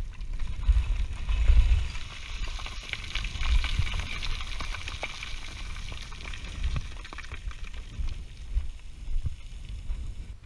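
Boots plunge-stepping and sliding down loose scree: a steady hiss of running gravel with many small stones clicking, and dull low thuds from the footfalls. The hiss eases off near the end.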